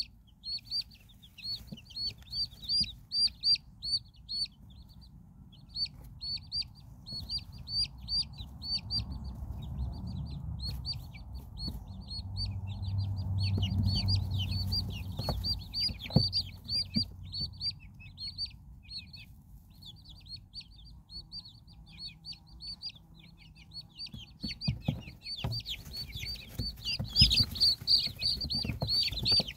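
A brood of chicks peeping steadily, many short high cheeps a second, over a mother hen's low clucking that swells in the middle. A few sharp knocks and scuffles near the end.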